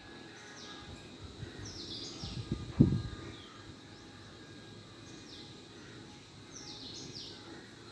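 Birds chirping in the background: short, high calls that fall in pitch, in small clusters. A brief low thump about three seconds in is the loudest sound.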